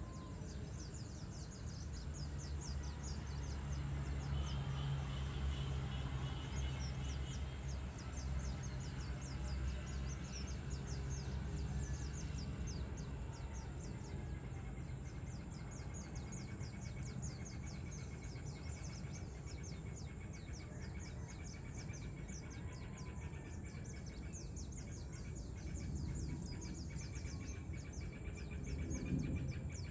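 Birds chirping and calling in rapid, repeated high chirps, with a short trill about five seconds in, over a low steady rumble of distant city noise.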